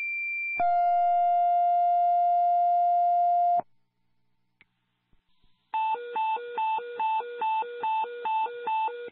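Fire dispatch radio paging tones: a high steady tone gives way to a lower steady tone held for about three seconds, the two-tone page that sets off the ambulance crew's pagers. After a two-second pause comes a hi-lo alert tone, alternating between two pitches about two and a half times a second.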